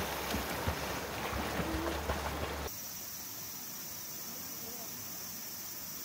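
Flowing stream water with wind rumbling on the microphone. About two and a half seconds in it cuts to a steady, quieter chorus of insects.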